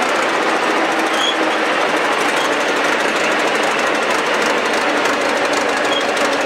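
Russian ChTZ crawler tractor moving slowly over gravel: its engine running with a rapid, steady clatter, mixed with the clanking of its steel track links.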